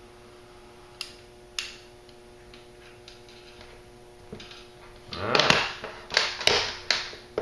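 Handling noise: two sharp clicks about a second in, then after a few quiet seconds a louder stretch of rustling and clicking. A faint steady hum underneath stops about four and a half seconds in.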